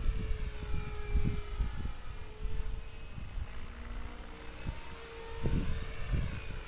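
Distant radio-controlled model helicopter flying aerobatic manoeuvres: a thin whine from its rotor and motor that drifts up and down in pitch. Gusts of wind buffet the microphone throughout.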